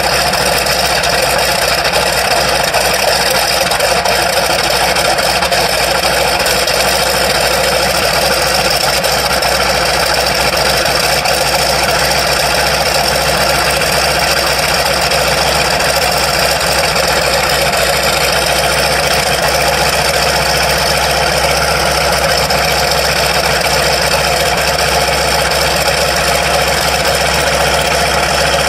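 PZL M-18 Dromader's ASz-62IR nine-cylinder radial engine idling steadily after starting.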